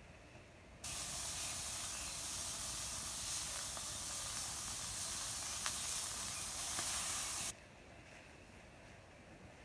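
Meatballs sizzling in a stainless steel pan over a campfire, a loud hiss with a few small pops of spitting fat. It starts abruptly about a second in and cuts off sharply after about seven seconds.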